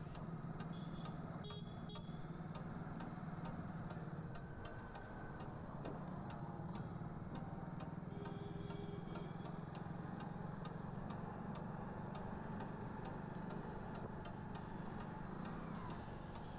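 A vehicle running through city traffic: a steady low hum of engine and road noise, with a regular faint ticking about twice a second. A few brief high tones sound now and then.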